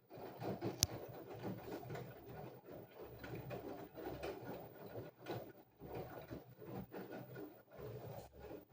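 LG front-loading washing machine running a wash, its drum turning the wet clothes with an uneven sloshing, tumbling sound. A single sharp click about a second in.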